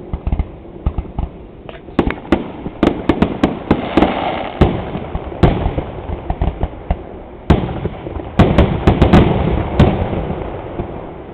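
Fireworks going off: a rapid, irregular run of sharp bangs with rumbling echo between them, thickest in two clusters and dying away near the end.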